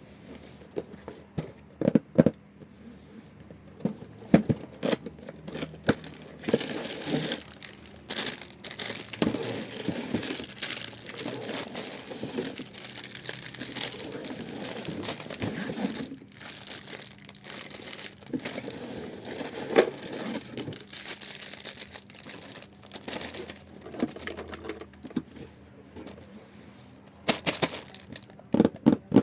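Lego set packaging being opened and handled: plastic bags and cardboard crinkling and tearing, with sharp clicks and knocks scattered throughout.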